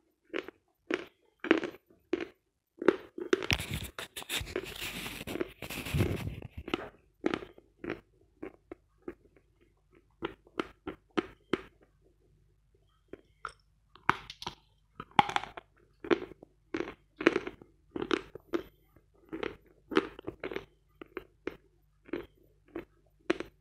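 Close-up crunching and chewing of dry Vatutin lump chalk, picked up by a small microphone held against the jaw. There is a dense burst of crunching a few seconds in, then steady chewing at about one to two crunches a second, with a short pause about halfway.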